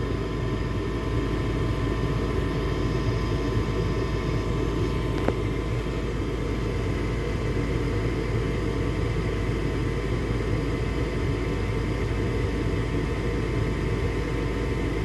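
Gas furnace's draft inducer fan motor running steadily with a hum, as the furnace cycles for another ignition attempt after the burners failed to light. A single click about five seconds in.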